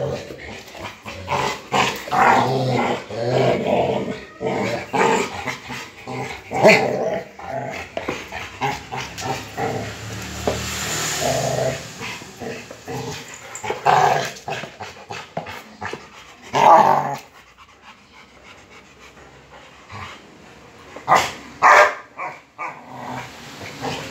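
Rottweilers growling as they tussle over a motorcycle tyre. A steady low growl runs through the first half, broken later by a few loud, sharp barks, with a quieter stretch before the last two.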